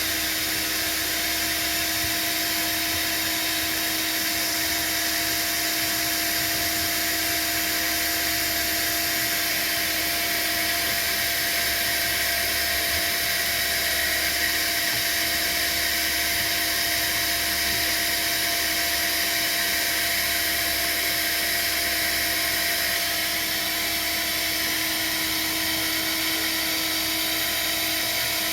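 Vacuum cleaner running steadily with an even motor whine and rushing air, hoovering dog hair and debris out of a diesel heater's air inlet pipe.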